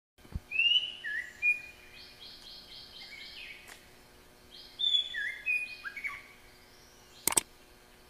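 A songbird whistling calls: a rising whistle, a short dipping note, then a quick run of repeated notes, the phrase repeated about five seconds in. Two sharp clicks come near the end.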